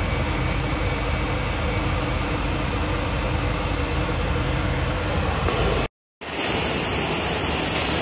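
A continuous rotary-drum carbonization furnace running: a steady roar with a low hum under it. The sound cuts out for a moment about six seconds in, then a similar steady, hissier noise resumes.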